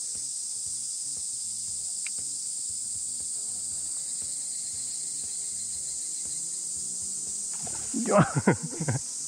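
Steady, dense chorus of cicadas in the trees, with background music underneath. About eight seconds in comes a short, loud burst of sound over it.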